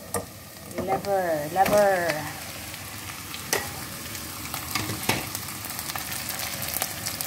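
Chicken livers, onion and ginger sizzling in hot oil in a nonstick pot: a steady frying hiss with a couple of sharp clicks partway through.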